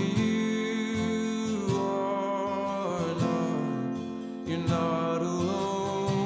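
Background music: strummed acoustic guitar under a sung melody.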